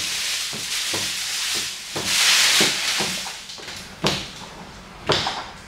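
Hand squeegee dragged over wet paint protection film on a car hood, a long rubbing swish as it pushes the slip solution out from under the film. A couple of short, sharp strokes follow near the end.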